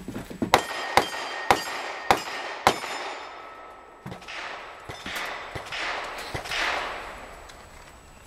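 A fast string of five handgun shots about half a second apart, each followed by the ring of a struck steel target plate.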